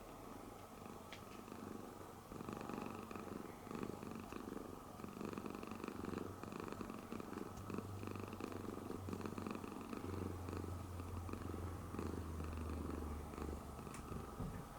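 Siamese cat purring close by, a steady rapid rumble that starts about two seconds in.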